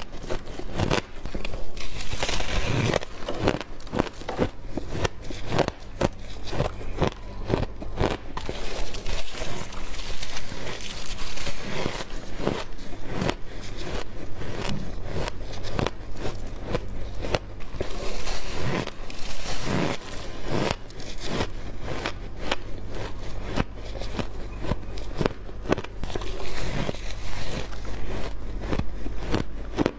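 Refrozen shaved ice being bitten and chewed close to the microphone: a dense run of sharp, crackly crunches. A steady low hum sits underneath.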